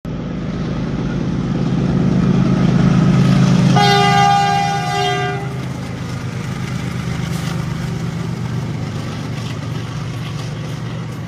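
Diesel freight locomotive passing close by, its engine a steady low drone that swells as it nears. About four seconds in it sounds its multi-tone horn once, for about a second and a half.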